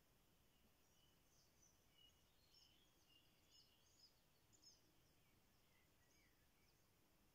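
Near silence, with faint, high chirps of small songbirds, most of them in the middle few seconds.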